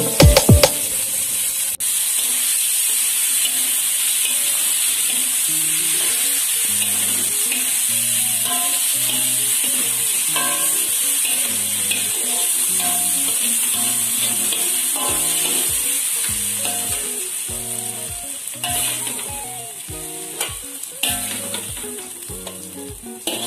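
Canned sardines sizzling steadily as they fry in oil in a steel wok, stirred and mashed with a metal spatula; the sizzle eases about two-thirds of the way through. Soft background music with a beat plays underneath.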